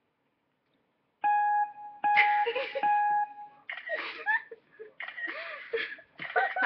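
About a second of near silence, then a steady high tone with overtones for about two and a half seconds, overlapped and then followed by girls' voices making sounds without clear words.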